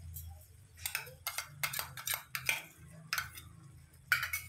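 A metal spatula clinking and scraping against a kadhai as the food is worked, a string of about ten short clinks starting about a second in.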